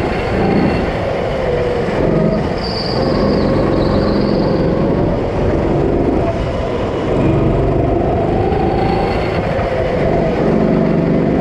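Go-kart engine running hard, its pitch rising and falling as it revs up and eases off, with a brief high squeal about three seconds in.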